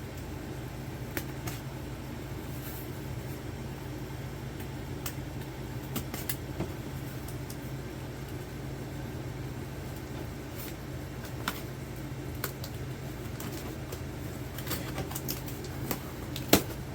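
Light scattered clicks and taps from Funko Pop boxes and packaging being handled, with a sharper click near the end, over a steady low hum.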